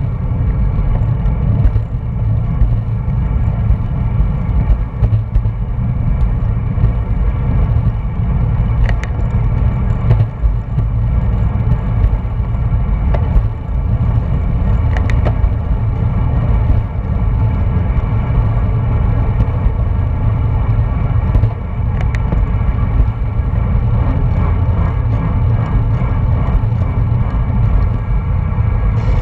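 Wind rushing over an action camera's microphone at road-cycling speed, a steady low rumble, with a few faint clicks here and there.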